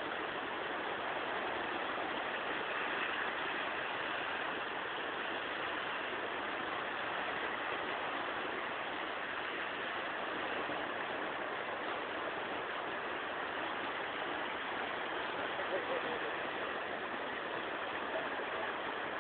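Steady rushing wash of sea waves on shore rocks, heard through a cellphone microphone that makes it sound dull and narrow.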